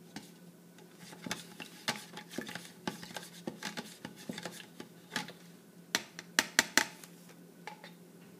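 A metal spoon clicking and scraping against a plastic cup and an egg as an egg is stirred and turned in egg dye, in scattered taps with a quick run of louder clicks about six seconds in.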